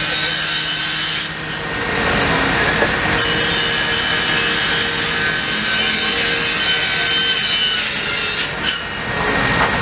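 Engine-driven fire-service equipment running steadily, giving a loud rasping, buzzing noise.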